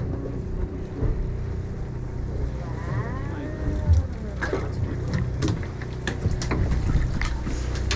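Steady low hum of a boat's engine running, with scattered sharp clicks and knocks from gear on deck, mostly in the second half.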